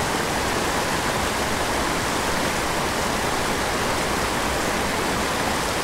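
Small mountain creek rushing over rocks in little cascades: a steady rush of water.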